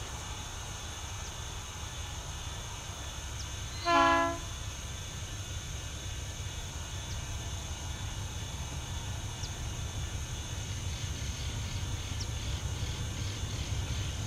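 ALCo RSD16 diesel locomotives approaching, a steady low engine rumble slowly growing louder, with one short horn blast about four seconds in.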